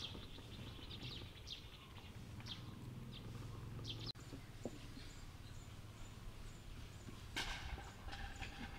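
Outdoor ambience with short, high animal chirps, several in the first four seconds, a sharp click just after, and a louder call about seven and a half seconds in.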